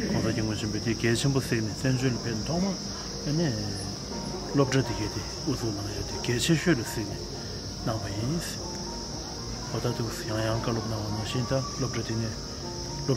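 A man talking steadily, over a constant high-pitched insect drone that does not let up.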